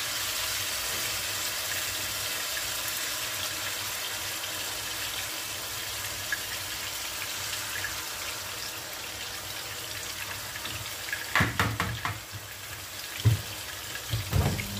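Marinated chicken pieces sizzling steadily in hot oil in a frying pan. A few clicks of metal tongs and one sharp knock come near the end.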